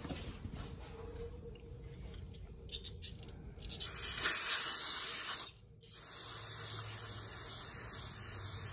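Aerosol spray can fired through a red extension straw into a greasy manual-transmission shifter housing. There is a short hissing burst about four seconds in, a brief break, then a longer steady hiss.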